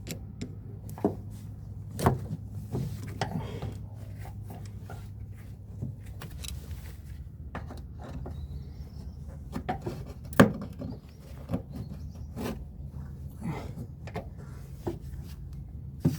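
Irregular clicks, taps and knocks of hands and tools working a car's fuel filler neck and its rubber seal loose, with one sharp knock about ten seconds in, over a steady low hum.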